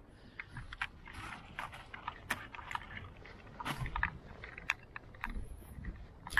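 Irregular light clicks, taps and scrapes of crabs and a crab trap being handled, hard shells and claws knocking against each other and the trap.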